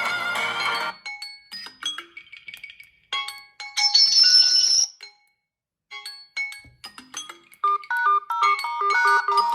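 Smartphone ringtone and alarm tones played one after another: a run of music ends about a second in, then scattered short electronic chime notes and a brief high held tone, a moment of silence, and near the end a quick repeating melody of short notes.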